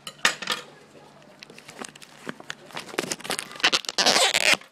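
Serrated knife scraping and cutting into the plastic shrink-wrap of a Blu-ray/DVD case, a run of irregular clicks and scratches with plastic crinkling. A louder crinkling rustle comes about three and a half seconds in and lasts about a second.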